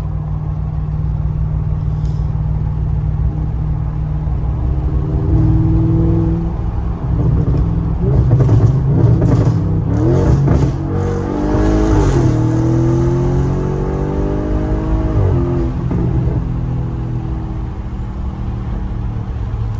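Audi S8's twin-turbo V8, fitted with a large intake and catless downpipes, pulling under load: the engine pitch climbs and gets louder through the middle, then drops back as the throttle eases and settles into a steady cruise.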